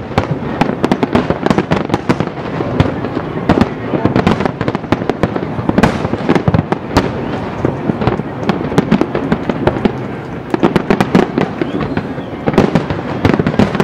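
Aerial fireworks shells bursting in rapid succession: a dense run of booms over continuous crackling.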